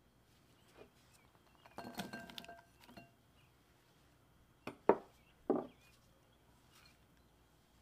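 Sliced onion dropped into a glass bowl: a clatter lasting about a second, with a glassy ring. About two seconds later come three sharp knocks.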